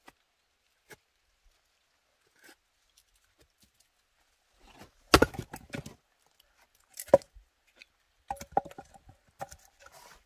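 Axe splitting firewood: a few light knocks, then a loud burst of strikes and cracking wood about five seconds in, another sharp strike about two seconds later, and a run of wooden knocks near the end.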